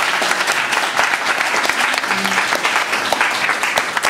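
A room full of guests applauding steadily, many hand claps overlapping, with a few voices mixed in.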